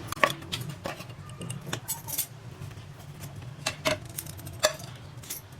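Metal utensils clinking and tapping against a pan and plate as fried bread is dipped in sugar syrup and lifted out: a string of scattered light clicks, a few sharper ones near the middle and later on.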